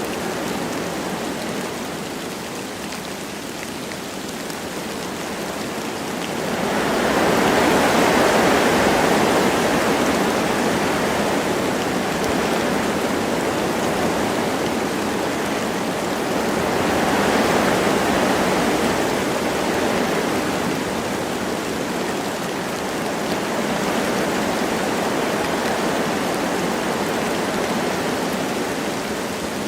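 Wind blowing through forest trees with light rain falling: a steady rushing hiss that swells in gusts about seven seconds in and again around seventeen seconds.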